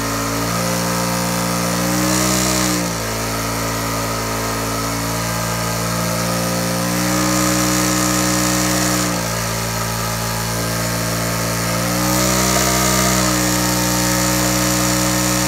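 Generator running with a steady hum whose pitch rises and falls back several times as its frequency is switched between about 65 and 70 hertz, the output voltage climbing and dropping with it.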